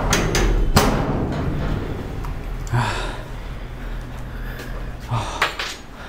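A door being opened: a sharp click followed by a few knocks and thumps.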